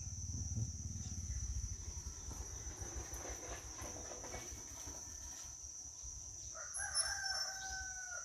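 A rooster crowing once near the end, one long call held and falling slightly in pitch. A steady high insect trill runs underneath.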